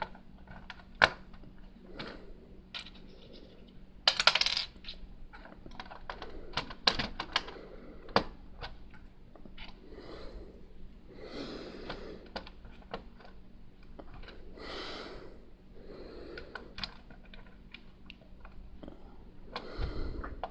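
Plastic Lego pieces clicking and clattering as they are picked through and handled, with a brief rattle of bricks about four seconds in. Softer rustling of pieces follows in the second half.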